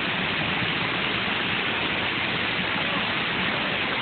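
Waterfall close below, water pouring over the rock lip in a steady, even rush.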